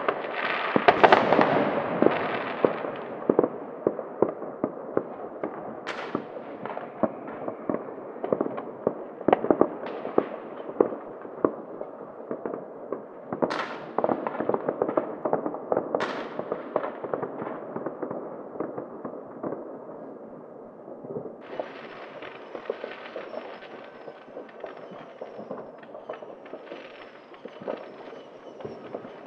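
Many private New Year's Eve fireworks and firecrackers going off at once: a dense, continuous crackle of pops and bangs, with a loud burst about a second in and several sharper single bangs later. A steady hiss joins the crackle about two-thirds of the way through.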